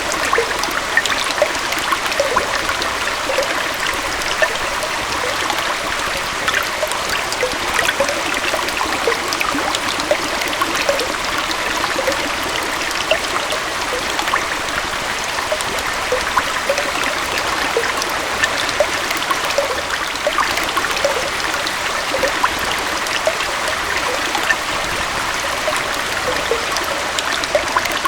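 Gentle waterfall and stream flowing steadily over rocks, a continuous rush of water with many small splashes and trickles through it.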